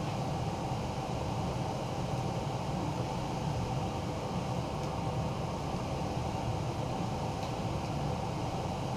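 Steady mechanical hum of a running fan, with two faint light ticks partway through.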